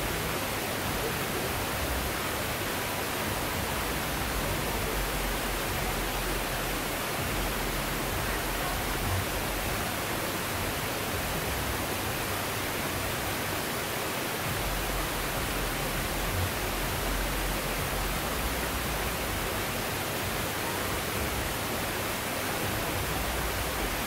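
Waterfall: a steady, even rush of water falling and cascading over rocks.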